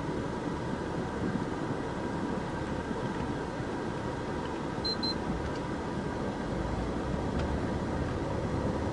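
Steady vehicle noise with no speech, and a short high double beep about five seconds in.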